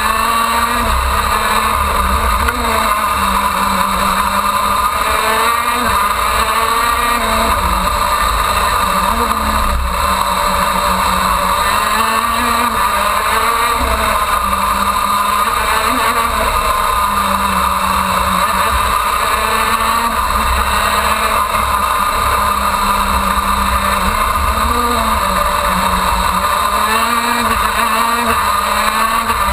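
KZ2 shifter kart's 125 cc two-stroke engine heard from on board at racing speed, its revs rising and falling again and again around the lap.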